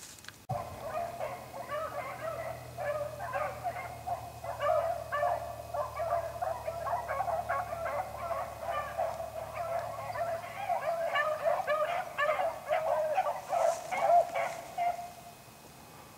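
A pack of beagles baying while running a rabbit, many overlapping voices calling steadily. The calls start about half a second in and fade out near the end.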